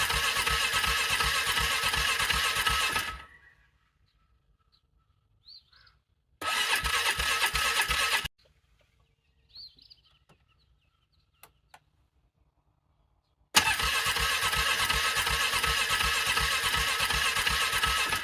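The electric starter of an ATV cranks its cold engine in freezing weather, with a steady, rhythmic churning, three times. The engine does not catch, and each attempt cuts off suddenly: the engine is struggling to start in the cold.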